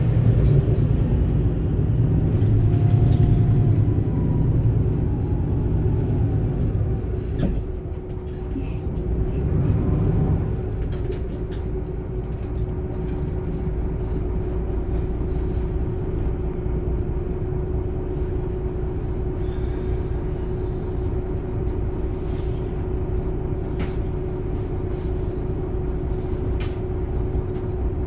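MAN Lion's City A21 articulated bus with a 360 hp engine and ZF EcoLife six-speed automatic, heard on board while driving. It runs with a heavy low rumble for the first several seconds, which eases about seven seconds in, swells briefly, then settles into an even run with a steady whine.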